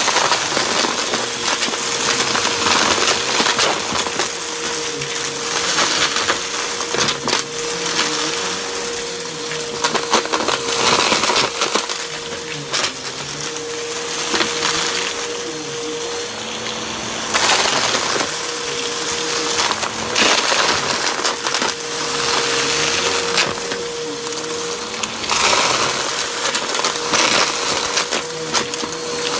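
Bissell bagless upright vacuum cleaner running with its brushroll on carpet, pushed back and forth through a pile of dust clumps and small hard bits. A steady motor hum runs under a dense crackling and rattling as the debris is sucked up, and the hum drops out briefly a few times.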